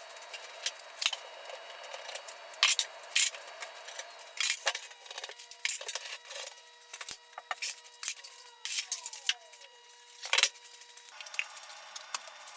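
Irregular clicks and light clatters of wood and metal being handled, typical of clamps being set on a freshly glued, dowelled maple frame.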